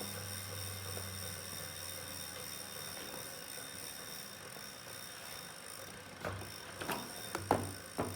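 Wahoo Kickr Core smart trainer's flywheel spinning with a steady hum, then about five sharp ticks in the last two seconds: the ticking noise from the flywheel.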